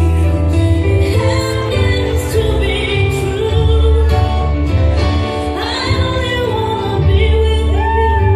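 A song playing, with a singer over sustained bass notes.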